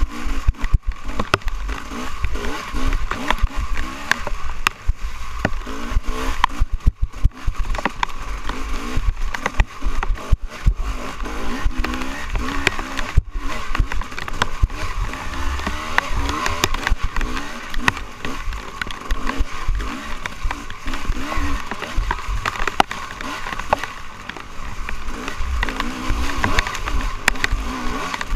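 Off-road dirt bike engine revving up and down again and again as the throttle is worked along a rough trail, with knocks and rattles from bumps and heavy low rumble on the microphone.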